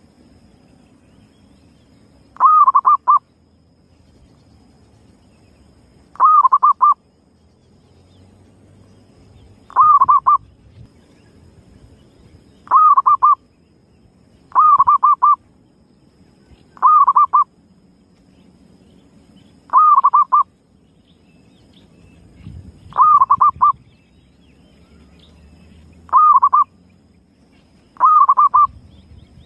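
Zebra dove (perkutut) calling: ten short phrases, each a quick burst of cooing notes under a second long, repeated every two to four seconds. It is a lure call played to draw wild zebra doves.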